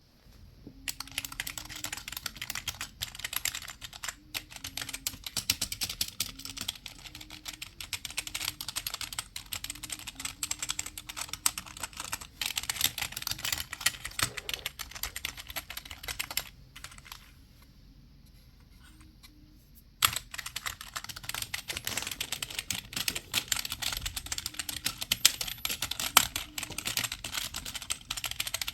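Fast, continuous typing on a computer keyboard: a dense stream of keystroke clicks that stops for about three seconds about two-thirds of the way through, then starts again.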